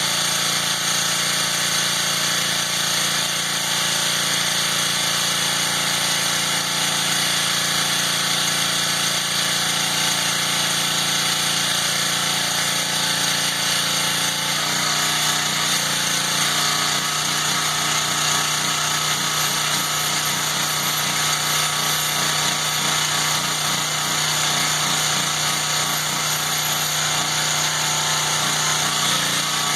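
Honda gas pressure washer running, its engine going steadily under a strong hiss. About halfway through the engine note changes and takes on a pulsing beat. The washer is being run to test its freshly resealed pump.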